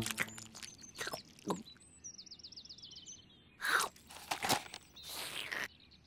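Crunchy bites and chewing of fruit, a handful of separate crisp crunches, the loudest a little before four seconds. A quick run of high bird chirps comes about two seconds in.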